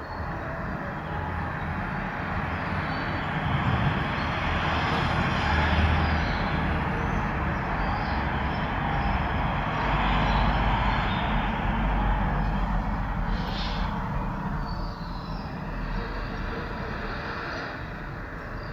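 Traffic passing along a street: vehicle noise with a low rumble that swells over several seconds and slowly fades again.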